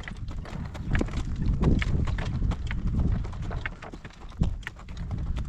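Horse's hooves clip-clopping, with wind rumbling on the microphone.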